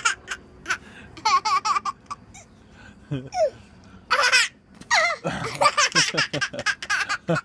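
Baby laughing in several high, wavering bursts, the longest near the end, set off by his father spitting peas at him.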